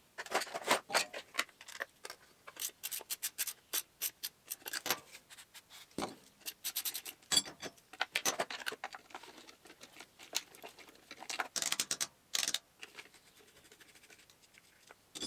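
Workshop hand work on engine parts: a run of irregular clicks, scrapes and rubbing, easing off near the end.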